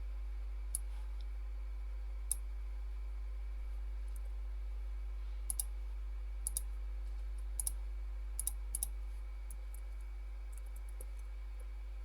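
Computer mouse clicking, some single clicks and several quick pairs like double-clicks, scattered irregularly over a steady low electrical hum.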